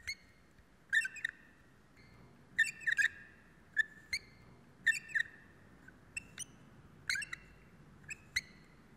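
Short high chirps, singly and in quick pairs, about one pair a second, against near quiet.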